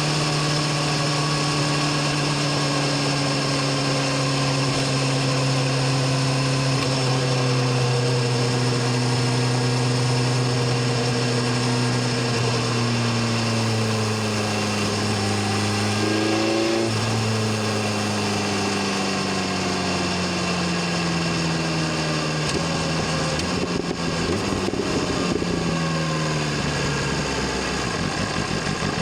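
BMW S1000RR inline-four engine and exhaust running on the road, its pitch sinking slowly as the bike slows. There is a short rise in pitch about halfway through, then the note drops further and settles low and steady near the end.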